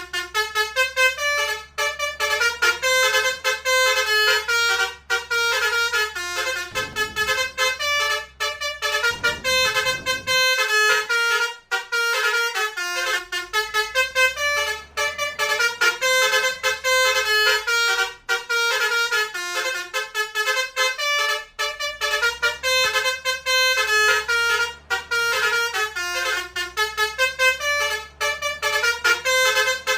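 Bus 'basuri' multi-trumpet musical horn, the 'om telolet' horn of Indonesian intercity buses, playing a fast melody of short notes almost without a break.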